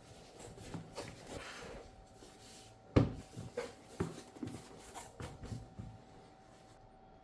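A motherboard box and its packaging are being handled during unboxing: light knocks, clicks and rustling, with the sharpest knock about three seconds in. A faint steady hum runs underneath.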